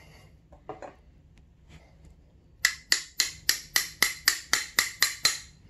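Ratchet wrench worked rapidly back and forth, about eleven quick ratcheting strokes at roughly four a second, running down a 12 mm bolt on a dirt bike's brake caliper. A faint knock of handled parts comes just before.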